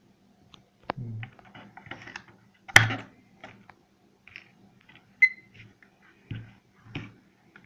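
Plastic clicks, knocks and rattles as AA batteries are fitted into the plastic battery compartment of a digital LED alarm clock, about five separate clicks, the loudest a little under three seconds in. One click, a little past five seconds in, carries a brief high ring.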